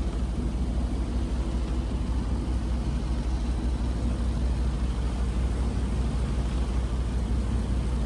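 Small powerboat's engine running steadily under way, a constant low hum with rushing water and wind noise over it.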